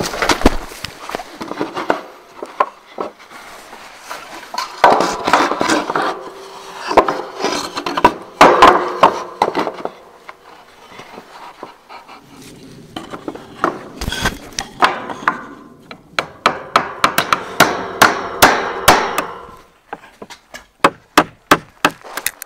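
Hammer blows on wood, as in nailing, coming in several bursts, with a quick run of evenly spaced strikes near the end.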